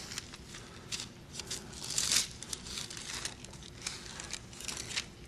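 Bible pages rustling as they are turned in search of a passage: irregular soft crinkles, loudest about two seconds in.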